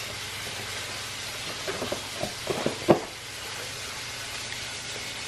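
Chicken breast frying in a pan, a steady sizzle. A few short, sharp pitched sounds break in between about one and a half and three seconds in, the last one the loudest.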